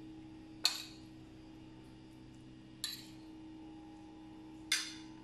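A metal spoon clinking against dishes three times, about two seconds apart, each a sharp short clink that rings briefly, as shredded chicken is spooned out and spread over a pizza.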